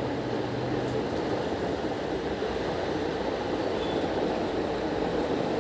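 Steady droning background noise, strongest in the low-middle range, with a few faint light clicks about two thirds of the way through.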